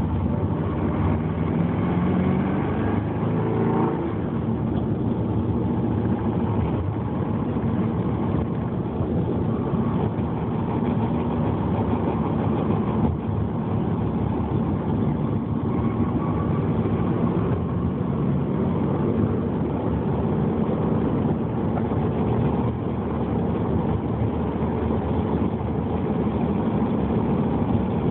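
Subaru Legacy drivetrain running steadily on the move, a dense low grinding rumble with the engine pitch shifting briefly early on. This is the grinding noise that the owner hears only when decelerating in gear with the clutch engaged, and that follows engine revs rather than road speed.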